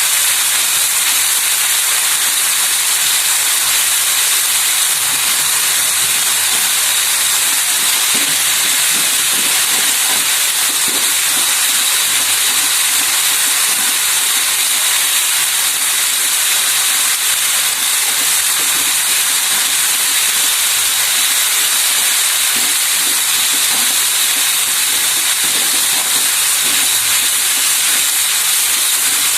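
Ground spice paste sizzling in hot oil in a wok as it is sautéed until fragrant: a steady, high hiss.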